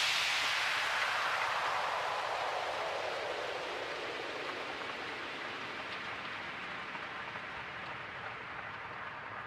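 A hiss sweeping steadily downward in pitch and fading away, the falling noise-sweep effect at the tail of an electronic music track.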